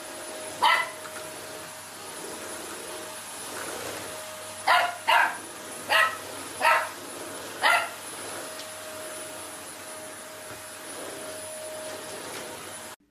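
A dachshund puppy barks at a running upright vacuum cleaner: one sharp bark about a second in, then five more in quick succession between about five and eight seconds in. Under the barks the vacuum's motor runs with a steady whine.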